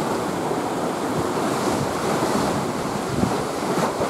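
Sea waves breaking and washing over a rocky shore ledge, a steady rushing, with wind on the microphone.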